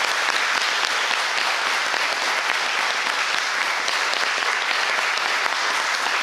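Audience applauding steadily, a dense even clapping that holds at one level.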